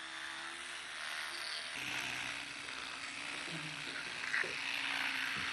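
Electric toothbrush running with a steady hum while a boy's teeth are brushed, with the brush hissing against the teeth.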